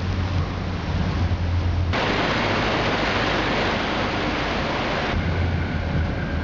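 Stretch film shredding plant running: steady machine noise with a deep hum. From about two to five seconds in the hum drops out, leaving an even hiss, then the hum comes back.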